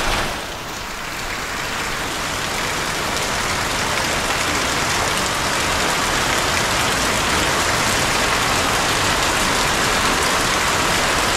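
Heavy rain falling steadily, a dense even hiss that grows a little louder over the first few seconds.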